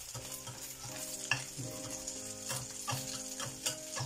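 Egg and chicken chorizo sizzling as they fry in a frying pan, with a spatula scraping and tapping against the pan in irregular clicks.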